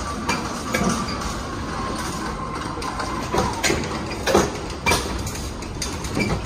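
Metal clanks and knocks from the locking bars and handles of a truck trailer's rear doors as they are shut and latched, over a steady mechanical running noise.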